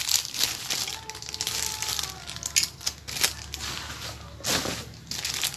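Plastic packaging wrap crinkling and crackling as the metal parts of a ring-light phone stand are unwrapped and handled, with a louder crinkle about four and a half seconds in.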